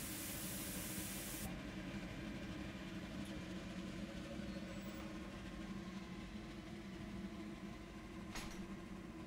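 Steam hissing from a professional trousers topper, cutting off suddenly about a second and a half in, over the steady hum of the machine's blower; a short click near the end.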